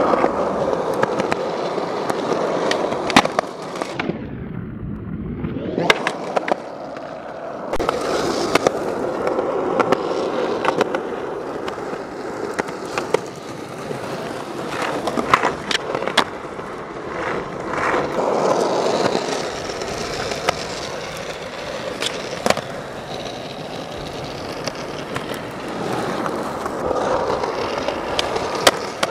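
Skateboard wheels rolling on smooth concrete, with sharp wooden clacks from tail pops and the board landing as flatground flip tricks are done, several times over.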